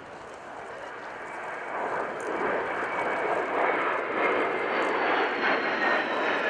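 Panavia Tornado jet flying by: a broad jet roar that grows louder over the first few seconds and then holds loud, with a faint high whine that slides gently down in pitch in the second half.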